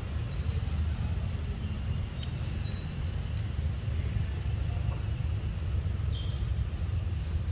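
Outdoor ambience: a steady insect drone with short runs of three or four quick high chirps every few seconds, over a low steady rumble.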